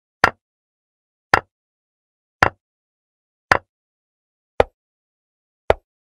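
Digital chess board's piece-move sound effect: six short clicks about a second apart, one for each move as it is played on the board.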